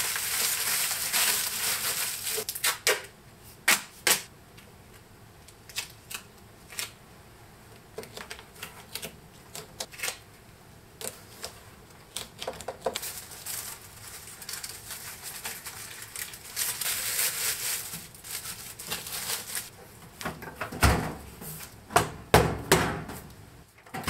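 Aluminium foil crinkling as it is pressed and smoothed over a microwave door by hand, with scattered clicks and taps of handling. Another stretch of crinkling comes a little past the middle, and a few louder knocks near the end.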